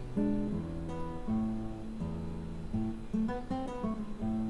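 Background music: an acoustic guitar playing plucked notes and strummed chords at an easy pace.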